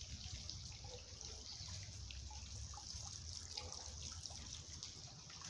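Faint trickling and dripping of a small garden fountain, with scattered small drips and a low steady rumble underneath.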